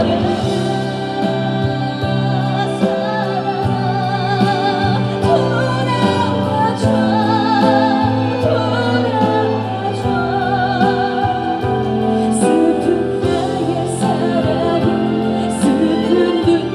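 Live trot music over a stage PA: steady band and keyboard backing with a melody line sung or played with strong vibrato.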